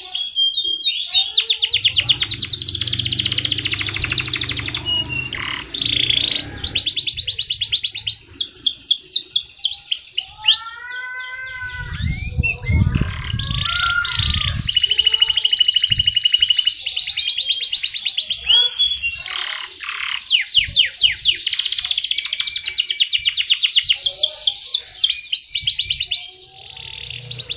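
Domestic canary in full song: long, fast trills and rolls of high, repeated notes, with a steady held whistle about halfway through and a slower run of lower, bending notes near the middle.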